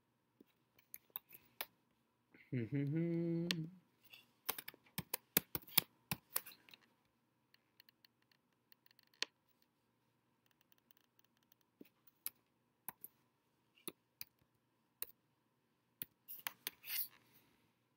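Scattered clicks and taps of a computer keyboard and mouse during text editing, with a short flurry of them near the end. About two and a half seconds in, a man hums a brief closed-mouth 'mm' for about a second.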